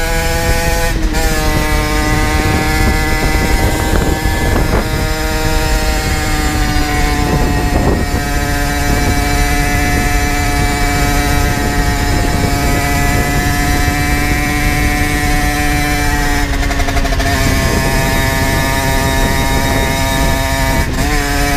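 Generic Trigger SM 50's 50cc two-stroke engine running at a steady high-pitched note under way through an aftermarket exhaust and header, with brief breaks in the note about a second in, about three-quarters through and near the end. Low wind rumble underneath.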